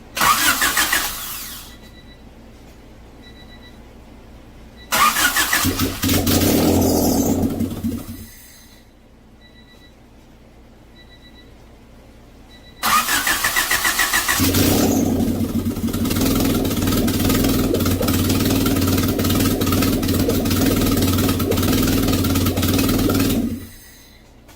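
1991 Honda Civic engine cranked by its starter three times after a head gasket repair. The first crank is brief. The second catches and runs for about two seconds before dying. On the third it catches after about a second and a half and runs roughly for about nine seconds before stopping, which the owner puts down to having no air intake fitted.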